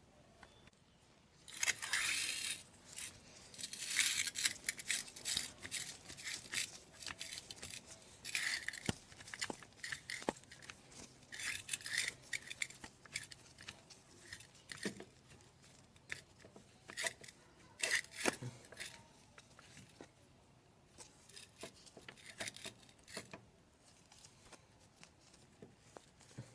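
Intermittent scraping, rubbing and light clicks from a car's scissor jack and tools being handled and set in place, in irregular bursts with short pauses.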